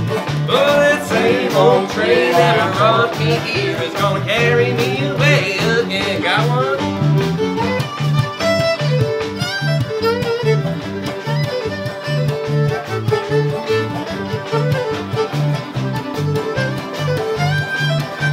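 Bluegrass band playing an instrumental break with no singing: the fiddle carries the melody over the electric bass's steady alternating beat and the acoustic guitars' rhythm.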